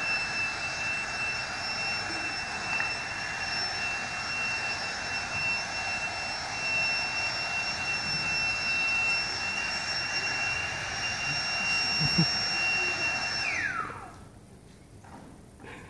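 A small electric motor with a fan, running with a steady high whine over a rush of air, then switched off about 14 seconds in, its whine sliding quickly down as it stops.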